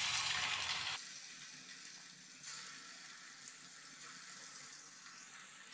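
Marinated chicken pieces sizzling as they are laid one by one into hot oil in a steel kadai. The hiss is loudest in the first second, then settles lower, with a brief flare about two and a half seconds in as another piece goes in.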